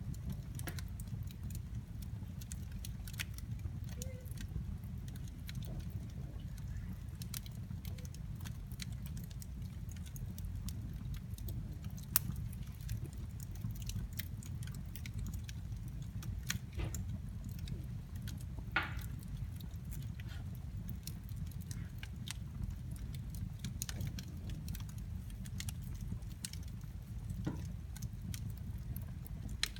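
Wood fire burning in a fireplace: a steady low rumble with scattered sharp crackles and pops, the loudest pops about twelve and nineteen seconds in.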